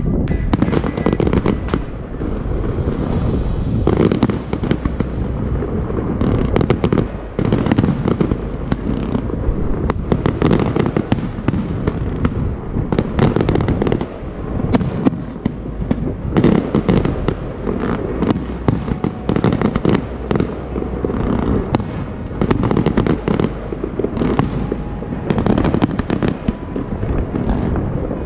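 Aerial fireworks display heard from far off: a continuous run of bangs and crackles in quick succession, without a break.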